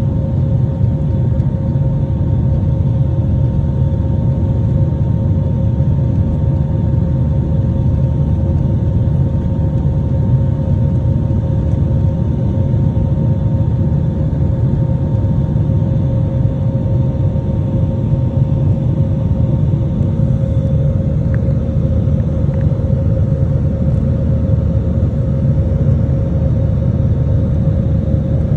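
Cabin noise inside a jet airliner climbing after takeoff: a steady low rumble of the engines and airflow, with a constant hum running through it.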